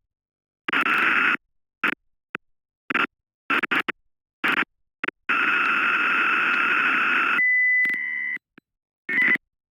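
Computer-synthesized sound of Mandelbrot set orbits from a fractal sound explorer program: a series of short, buzzy, noisy bursts separated by silences, one lasting about two seconds in the second half, then a brief steady pure tone.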